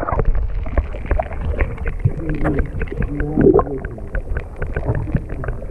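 Muffled handling noise on the camera: rubbing, scraping and many small knocks over a low rumble.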